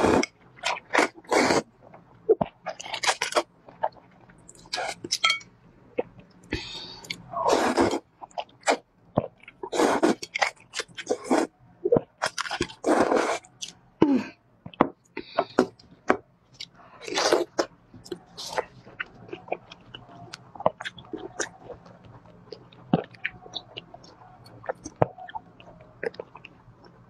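Close-miked eating: loud, repeated slurping of noodles from a bowl of spicy sauce, with wet chewing between slurps. The last third is mostly short, crisp crunches from chewing a firmer food.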